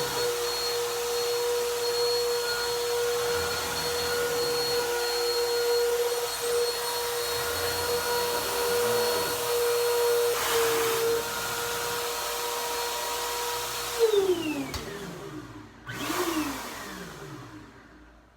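Upright vacuum cleaner running steadily with a high motor whine, then switched off: the motor winds down with a falling pitch, is briefly switched on again and winds down once more.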